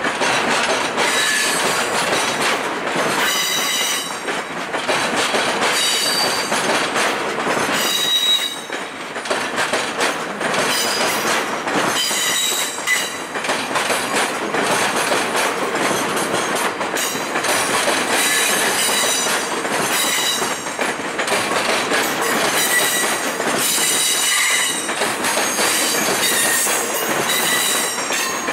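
Stainless-steel passenger cars of a departing train rolling past, wheels clacking over rail joints and switches. A high-pitched wheel squeal comes and goes as they take the curving track.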